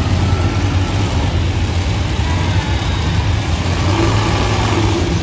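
Monster truck engines running in an arena, a steady low rumble with some light revving.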